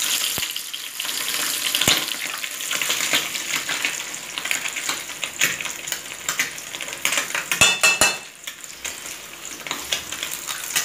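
A piece of beef tripe frying in hot oil in a small frying pan: steady sizzling and crackling, with a few sharp clicks, two close together about three-quarters of the way through. The tripe is being fried plain first, to firm it up before breading.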